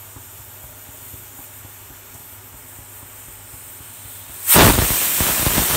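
Pressure cooker whistle going off about four and a half seconds in: a sudden loud blast of steam hissing out past the weight valve. It is the fourth whistle, the signal that the vermicelli is done and the gas can go off. Before it there is only a faint steady hiss.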